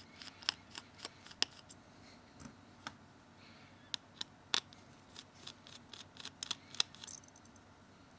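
Small Phillips screwdriver undoing tiny screws in a Samsung Galaxy S2's metal frame: scattered light clicks and scrapes, with a few sharper ticks.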